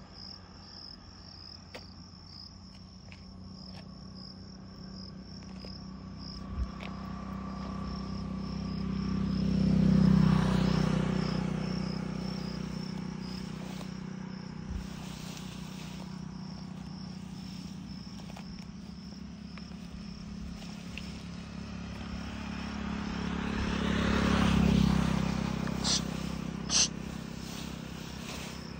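Insects chirring steadily with an even, rapid pulse. Two vehicles pass, their engine hum swelling and fading, once about a third of the way in and again near the end, followed by a couple of sharp clicks.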